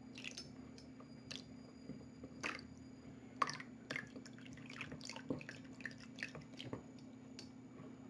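Plastic spatula stirring runny glue slime in a plastic bowl as liquid borax activator is added: irregular short wet clicks, over a steady low hum.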